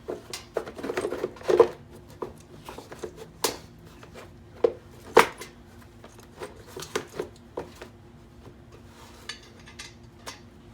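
Tools and hard parts being handled and set down: irregular clinks and knocks, the loudest about a second and a half and five seconds in.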